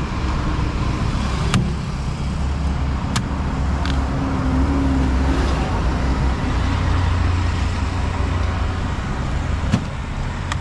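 Road traffic running past with a steady low engine rumble that grows stronger in the second half. A few sharp knocks of a large knife chopping into palmyra palm fruit sound over it.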